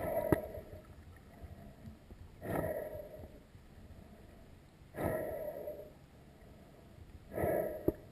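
Water noise heard through an underwater camera: a muffled whoosh about every two and a half seconds as the swimmers move at the surface, with two sharp clicks, one just after the start and one near the end.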